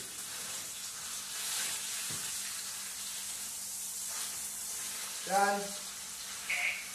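Meat sizzling steadily as it browns in a frying pan, with a short pitched sound about five seconds in.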